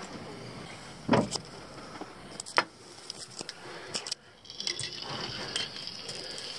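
Scattered knocks and light clinks as things are handled and set down on a table, with rustling in the second half.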